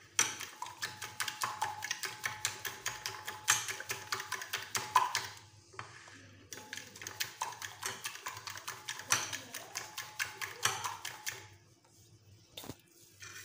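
Metal fork beating egg and milk batter in a glass baking dish: quick, even clicks of the fork against the glass. It stops briefly about five seconds in and again near the end.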